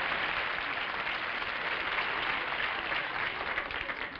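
Studio audience applauding, a dense steady clatter of many hands that dies down near the end.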